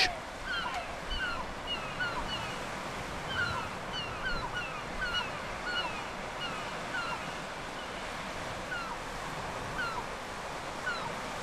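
Outdoor ambience: a steady hiss, with small birds calling over it in many short, falling chirps.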